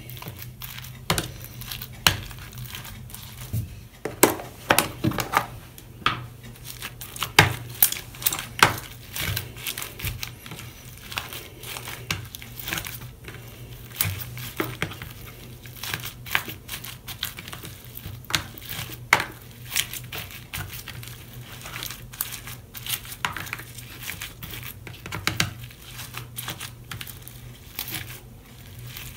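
Floam, slime packed with styrofoam beads, being squeezed and kneaded by hand in a clear plastic container: irregular crackling and popping as the beads shift and squash, over a steady low hum.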